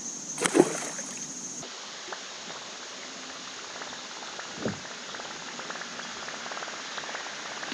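Water swishing and lapping along a pedal-drive kayak's hull as it moves across the lake, with faint ticks and one short low knock about halfway through. Before that, insects buzz steadily for the first second or so, with a brief voice.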